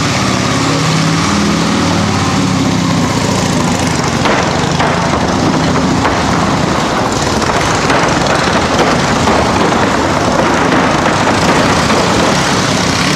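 Vintage 1920s Indian motorcycle engine running inside a wooden Wall of Death drum. Its even note gives way about four seconds in to a rougher, busier sound as the bike gets under way around the wall.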